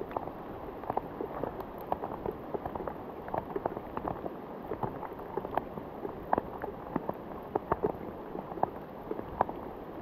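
Steady rain falling on lake water and on a rain jacket close by, with many irregular sharp drop hits over an even hiss.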